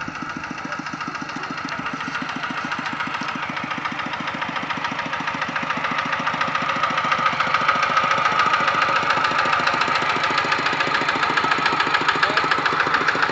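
Two-wheel walking tractor's single-cylinder diesel engine chugging with a fast, even knock while the tractor pulls a loaded trailer along the road, growing louder as it comes up and passes.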